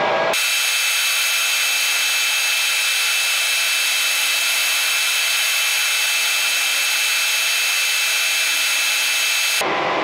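Metal lathe cutting the muzzle face and crown bevel of a rifle barrel: a steady, loud cutting noise with several held high-pitched tones. It starts abruptly just after the beginning and cuts off abruptly near the end.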